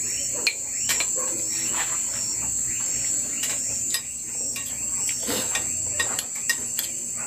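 Crickets calling steadily with a high continuous trill, with a few sharp clinks of a metal spoon against a ceramic bowl.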